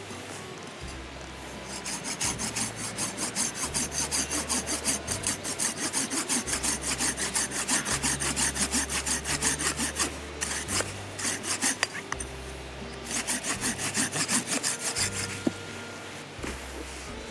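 Wood being sawn by hand, fast back-and-forth saw strokes in two bouts, the second shorter after a pause.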